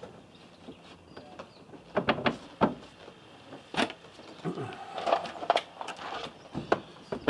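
Irregular knocks, bumps and rustling scrapes as a mattress is shifted and pressed down onto a wooden slatted bed frame.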